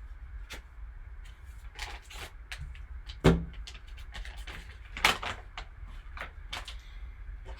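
Hands opening a sealed trading-card pack and handling the packaging and the graded card's plastic case: a run of clicks and rustles, with two sharp knocks about three and five seconds in, the first the loudest.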